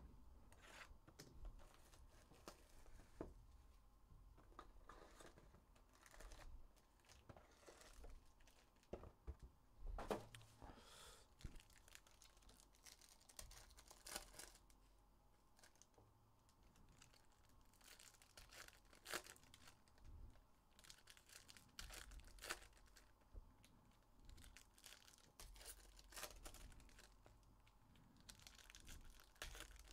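Foil trading-card packs (2023 Panini Prizm football hobby packs) being torn open by hand, faint crinkling and tearing of the wrappers with many short, sharp rustles as the cards are pulled out and handled.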